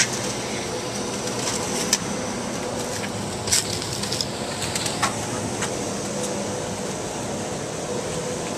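Steady mechanical hum and hiss, broken by a few short clicks and taps.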